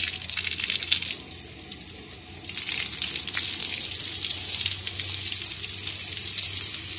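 Water from a hose jetting into a small 3D-printed cross-flow hydro turbine and splashing off it: a steady hissing rush that drops off briefly about two seconds in, then picks up again.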